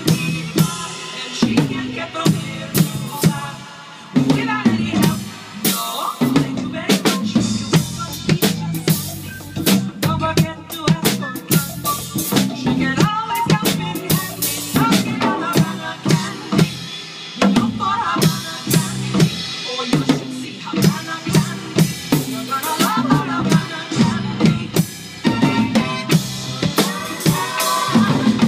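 Pearl drum kit being played: a steady beat of bass drum, snare and cymbals, easing off briefly about four seconds in.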